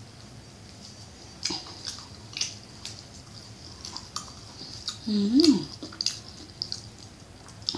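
Close-up eating sounds: wet mouth clicks, smacking and chewing of papaya salad and sticky rice, in scattered short snaps. About five seconds in comes a louder burst of mouth noise with a brief hummed vocal sound that rises and falls in pitch.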